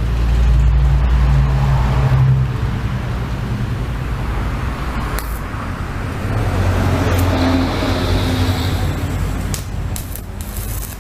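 Inverter stick welder in use during a test weld: a steady low hum under a hiss, with a few sharp clicks near the end.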